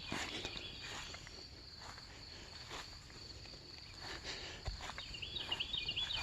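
Footsteps brushing through wet field vegetation over a steady, high-pitched chirring of crickets or other insects. From about five seconds in comes a quick run of repeated chirps.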